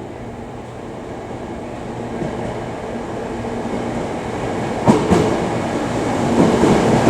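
Tokyo Metro Tozai Line train pulling into the platform, its running noise growing steadily louder. The wheels clack over rail joints about five seconds in and again near the end.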